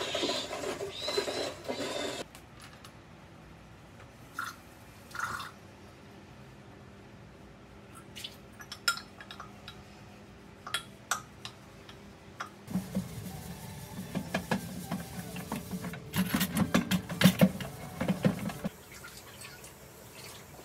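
Dishes and glassware being handled at a kitchen sink: scattered sharp clinks and knocks, then a tap running onto the dishes for about six seconds past the middle, with clattering throughout that stretch. There is a busier stretch of mixed sound in the first two seconds.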